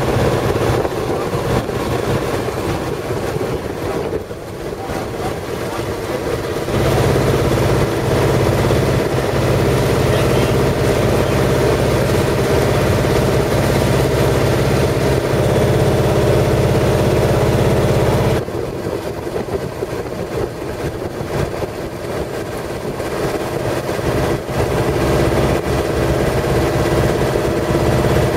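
A boat's engine running steadily underway, heard from on board. It grows louder about seven seconds in and drops back down about eighteen seconds in.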